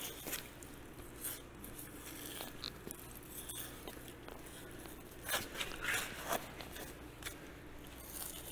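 6-inch Victorinox curved knife slicing and scraping bison hide away from the carcass: short scratchy strokes, a few sharper ones about five to six seconds in, as the tough, dry hide is pulled back. A steady low hum runs underneath.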